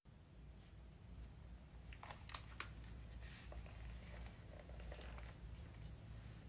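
Faint handling noise of packaging being unboxed: a few small clicks and soft crinkles, clustered about two seconds in, over a low room hum.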